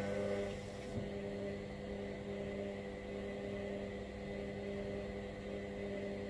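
Hoover washer-dryer running with a steady motor hum, and a single click about a second in.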